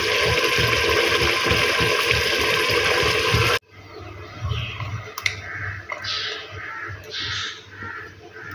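Mutton korma gravy simmering hard in the pot: a loud, steady bubbling and sizzling hiss with irregular low pops. It cuts off abruptly about three and a half seconds in, leaving quieter room sound with short, faint chirps.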